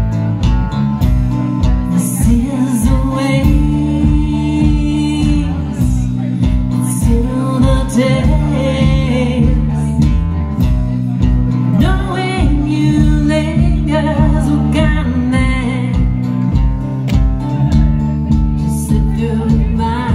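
Live rock band playing a song: drums keep a steady beat of about two strokes a second under electric guitars, with sung vocal phrases coming in and out.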